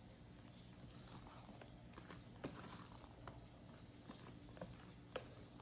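Faint, irregular light taps and scrapes of a spatula against a stainless steel mixing bowl as chiffon batter is cut and folded, over a steady low hum.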